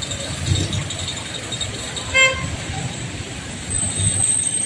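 Street traffic: cars and jeepneys driving past with a steady engine and tyre rumble. A short vehicle horn toot sounds about two seconds in, and a thin high whine comes in near the end.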